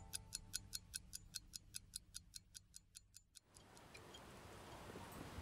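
Clock ticking quickly, about five ticks a second, fading away until it stops about three seconds in; a faint hiss then slowly rises.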